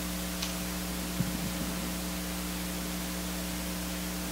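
Steady electrical hum at a few low pitches, over an even background hiss, with a faint tick about half a second in.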